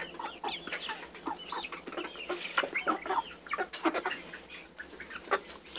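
A flock of hens clucking softly, many short calls overlapping.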